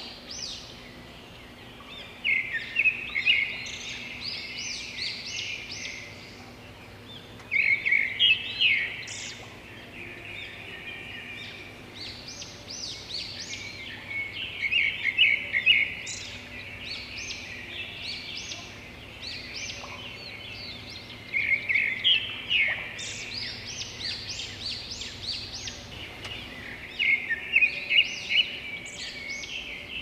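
Small birds singing: bursts of quick, high chirping phrases, with a louder burst about every five to six seconds and softer twittering in between.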